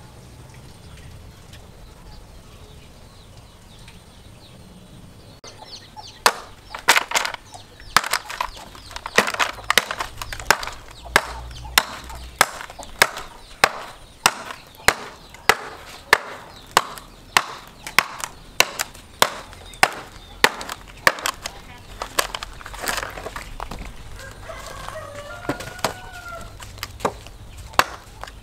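Axe forged from a car axle chopping a dry dead branch: sharp, even strokes about three every two seconds, starting some six seconds in. A rooster crows once in the background near the end.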